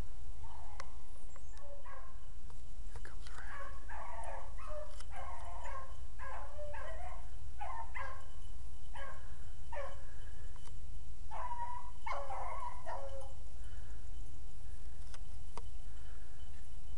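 Beagle hounds baying on a rabbit's scent trail: a run of repeated bawling calls that thins out and fades near the end.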